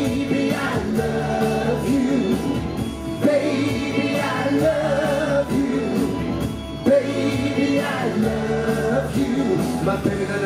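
Live pop music: singers on stage singing into microphones over amplified instrumental backing.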